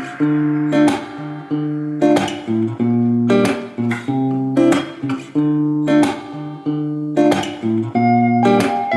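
Background music: guitar chords strummed or plucked in a steady rhythm, about one chord a second.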